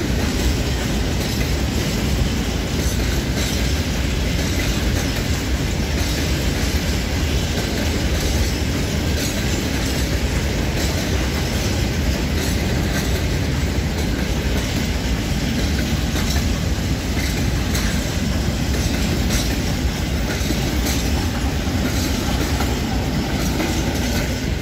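Freight train of open gondola wagons rolling steadily past, steel wheels clicking over the rail joints.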